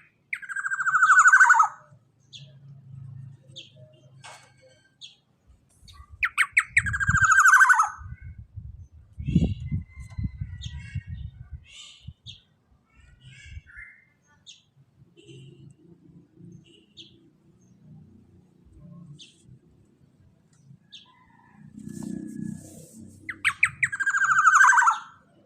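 Black-naped oriole (kepodang) giving three loud, harsh calls that fall in pitch over about a second and a half each: one at the start, one about six seconds in, and one near the end. Soft scattered chirps and a faint low rumble fill the gaps.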